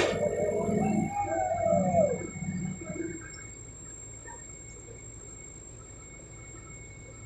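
Heavy lifting machinery: a sharp knock, then a drawn-out squeal that rises and falls over about two seconds. After it only a faint, steady low hum remains.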